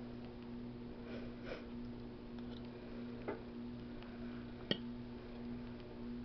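Metal fork scooping macaroni salad from a plate, giving a few soft clicks and one sharper click about three-quarters of the way through, over a steady low hum.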